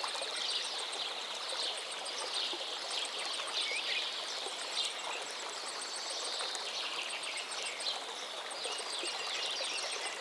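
Many birds chirping in short, overlapping calls over a steady hiss, with a fast, even ticking high above them.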